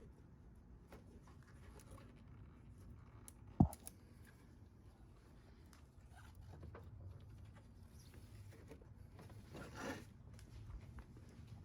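Faint handling noises from engine reassembly work: light clicks and rustles, with one sharp knock about three and a half seconds in and a louder scraping rustle near ten seconds.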